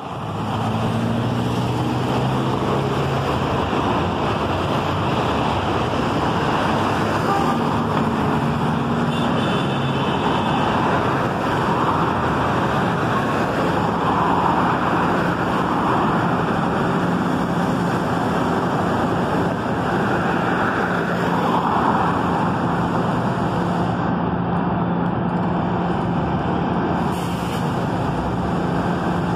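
Street traffic noise, with cars passing close by, next to a standing articulated trolleybus. A steady low hum runs underneath.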